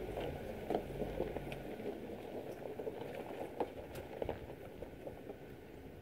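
Class C motorhome crawling over a rocky dirt track: its tyres crunching on loose stones with a steady run of small irregular pops and crackles. A low rumble underneath drops away about two seconds in.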